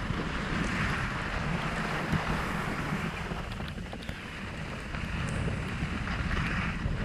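Wind buffeting the camera's microphone during a descent down a snowy ski run, a low rumble together with the hiss of sliding over snow. The hiss eases briefly about halfway and then builds again.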